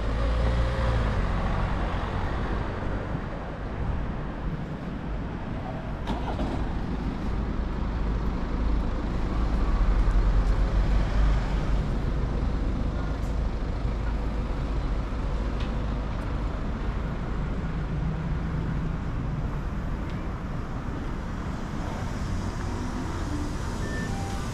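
Road traffic going by: a steady rumble of passing vehicles that swells for a few seconds about ten seconds in.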